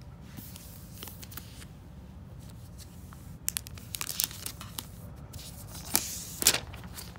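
Laptop packaging being torn and crinkled by hand: quiet at first, then sharp tearing and rustling from about halfway in, loudest near the end.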